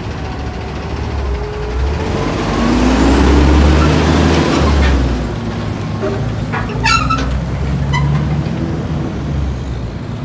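Heavy semi truck engine driving past: a deep rumble that grows to its loudest about three to four seconds in and then fades. A brief high clatter comes about seven seconds in.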